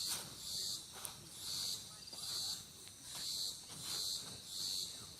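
Crickets chirping in an even rhythm, about three pulses every two seconds.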